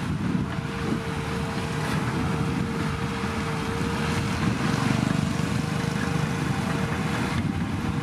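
Caterpillar bulldozer's diesel engine running steadily, with a steady whining tone over the engine noise.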